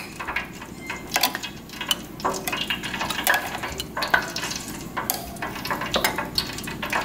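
Hands patting and scooping flour over a battered corn cob in a glass baking dish: soft, irregular rustles and little taps, over a steady low background hum.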